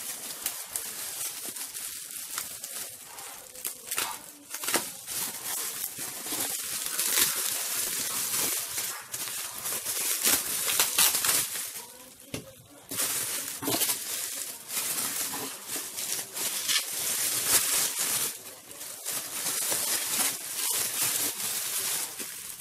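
Bubble wrap and plastic film crinkling and rustling as a package is cut open and unwrapped by hand, a dense crackle in bouts with brief pauses.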